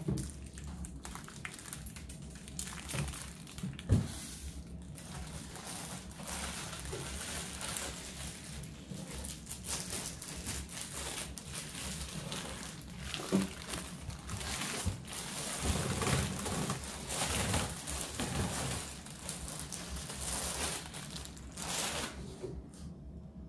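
Plastic wrapping around a light fixture crinkling and rustling as it is handled and lifted out of a cardboard box with a foam insert, with irregular scrapes and a sharp knock about four seconds in.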